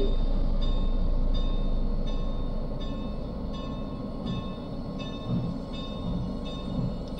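Norfolk & Western No. 475, a 4-8-0 steam locomotive, moving slowly with a low steady rumble. A bell rings about one and a half times a second. The whole sound fades gradually.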